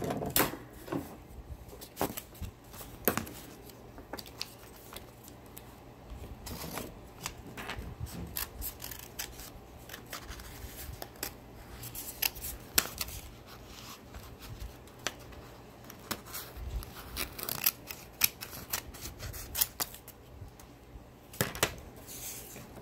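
Scissors cutting through paper: a long run of irregular snips with short pauses between them.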